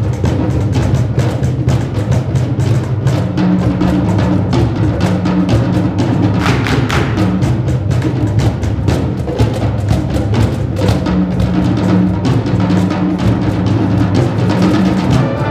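Live concert band playing loudly, with rapid drum and timpani strikes over sustained low notes.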